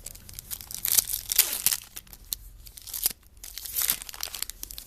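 Wrapper of a trading card pack being torn open and crinkled, in several irregular ripping bursts, loudest from about one to two seconds in.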